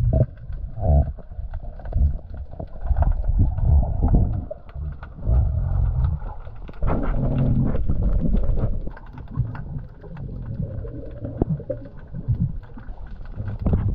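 Muffled underwater sound of water moving and gurgling around a submerged camera, swelling and fading in uneven surges.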